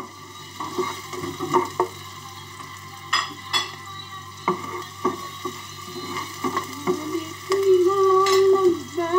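Onion, garlic and ginger sizzling in hot oil in a wok, stirred with a slotted spatula that scrapes and knocks against the pan every second or so. Near the end a steady, hum-like tone holds for about a second and a half.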